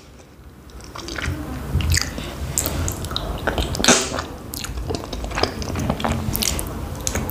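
Close-miked eating: a person bites into a small khinkali dumpling in cream sauce and chews it, giving many short mouth clicks over a low rumble. The biggest bite comes about four seconds in, and the first second is quiet.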